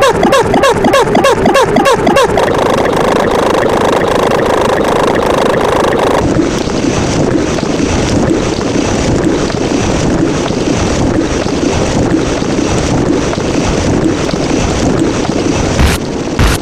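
A run of loud, distorted sound effects: rapid pulses, about four a second with falling pitch, for the first two seconds, then a steady noisy rush that changes to a different rushing noise with faint regular clicks about six seconds in.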